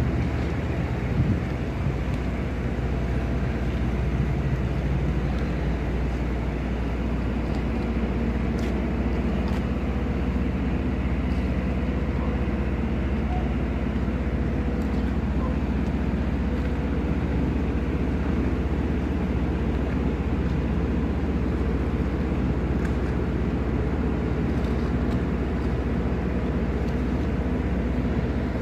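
Tugboat's diesel engine running, a steady low drone heard from on the tug's deck.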